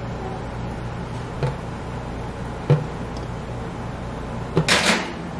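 Light knocks from a spoon and silicone muffin cups as blueberry batter is portioned into them, twice in the first three seconds, then a short, louder clatter near the end, over a steady low hum.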